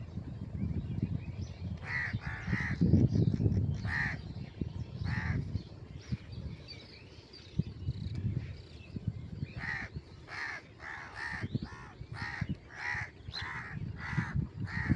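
Crows cawing: a few scattered caws in the first half, then a quick run of about ten caws near the end, over a low rumble.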